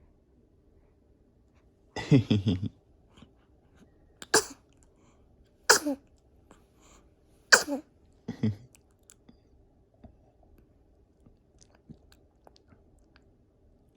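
A two-week-old newborn sneezing several times in a row: short, sharp sneezes roughly a second and a half to two seconds apart. They follow a longer, lower sound about two seconds in.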